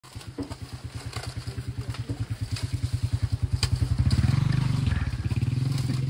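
Truck engine running with a steady low chug, getting louder about four seconds in, with a few sharp clicks over it.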